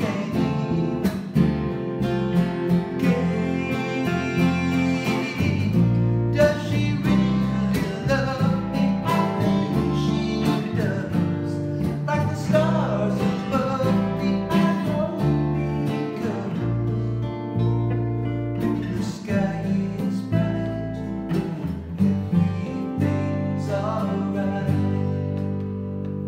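Live acoustic band: two acoustic guitars strummed and picked with an electric bass underneath, while a man sings the lead vocal.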